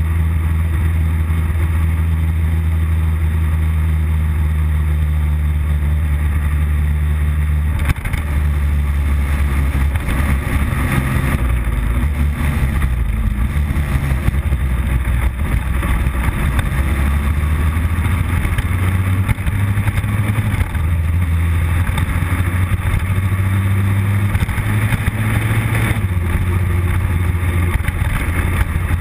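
Motorcycle engine running on the move, with heavy wind and road noise. The engine note drops about eight seconds in and changes pitch a few more times later.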